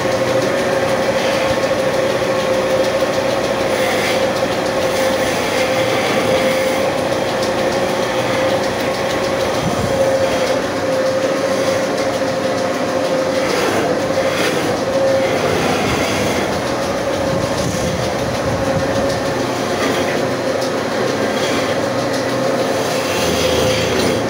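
A machine running steadily in a woodworking shop, with a constant mid-pitched whine over a rough mechanical rattle and a few faint clatters.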